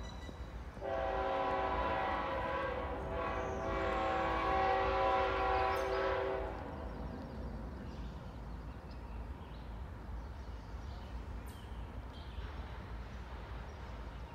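Distant diesel locomotive horn of an approaching CSX freight train: one long chord of about five and a half seconds, with a short dip partway through. A low, steady rumble follows.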